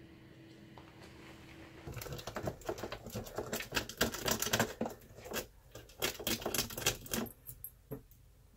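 A ferret scrabbling around inside a drip coffee maker's plastic water reservoir: rapid clicking and scratching of claws on the plastic. It starts suddenly about two seconds in and thins to a few scattered clicks near the end.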